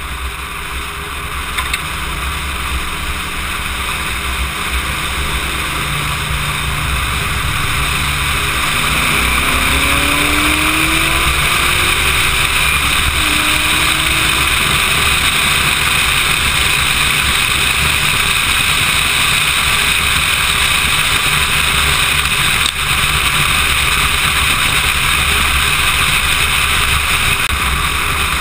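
Car at speed, dominated by a steady rush of wind and road noise that builds over the first several seconds and then holds. A faint engine note rises a few times under it about a third of the way in.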